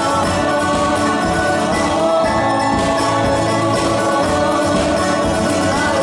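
Live folk song: two women's voices singing together over strummed acoustic guitar and mandolin.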